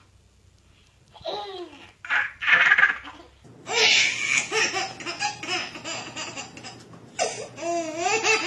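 A small child laughing: a few short bursts starting about a second in, then a long, continuous run of laughter from about halfway through.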